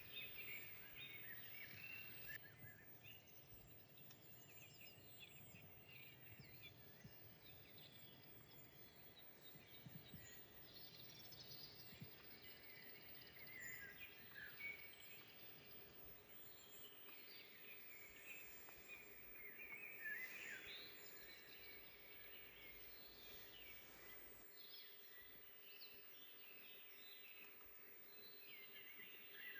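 Faint chorus of several songbirds singing and calling, many short chirps and trills overlapping, over a quiet forest background hush.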